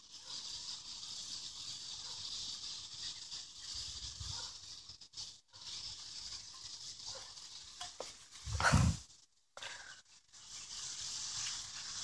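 Steady high-pitched hiss of an evening insect chorus in the grass. A brief rustle comes about eight and a half seconds in, the loudest sound here.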